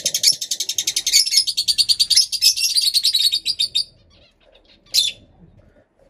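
Pet parrots screeching in a fast run of sharp, high calls for about four seconds, then one short call near the end. They are making a lot of noise.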